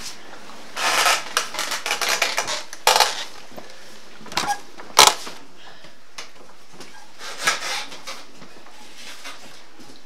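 Stone cider mill's runner wheel being pushed round its stone trough, crushing fruit into pulp: irregular crunching and clattering knocks, with a few sharp cracks, the sharpest about five seconds in.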